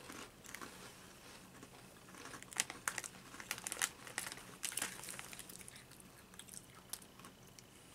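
Fried uni rice crackers being crunched and chewed, as scattered sharp crunches that come thickest in the middle, with a plastic snack bag crinkling as it is handled.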